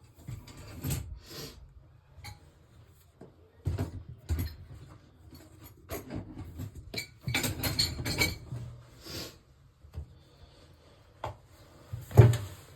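Irregular clinks, knocks and rattles of hard metal tools and parts being handled, with one louder knock near the end.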